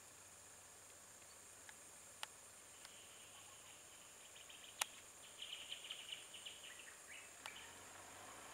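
Near silence, with a faint steady high insect drone, a few sharp clicks, and a stretch of faint, rapid chirping through the middle.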